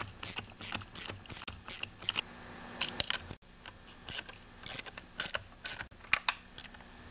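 Socket ratchet clicking in short runs of quick clicks, with brief pauses between strokes, as it tightens the nuts that hold a trimmer's carburetor and air filter base on their studs.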